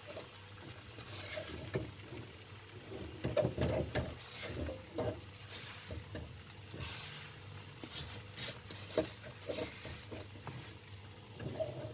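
Wooden spatula stirring a wok of peanuts in sugar syrup, with irregular scraping and knocking strokes against the pan, loudest about three to five seconds in. The peanuts are being stirred so the sugar coating doesn't stick.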